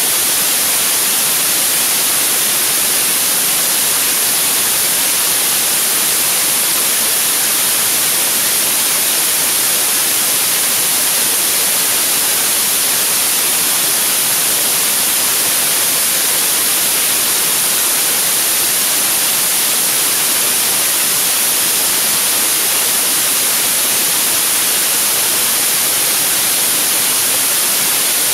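A 75-tonne liquid-oxygen/kerosene rocket engine firing steadily on a test stand in a long hot-fire test: a constant loud rushing hiss, heaviest in the treble and thin in the bass, with no change in level.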